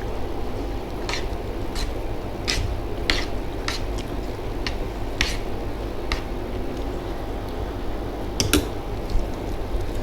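Close-up chewing of crisp fried food, a short crunch every half second to a second, with a louder double crunch near the end, over a steady low hum.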